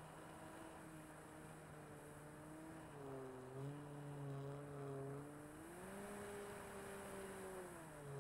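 Electric motor and propeller of an RC Corsair F4U model plane in flight, a steady hum that drops in pitch about three seconds in, rises about six seconds in and drops again near the end as the throttle changes, with a faint rush of air.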